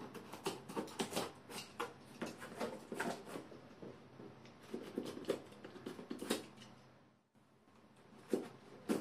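Cardboard shipping box being cut open with a knife: a run of short, sharp scraping and crackling sounds of blade on cardboard, dropping out briefly about seven seconds in.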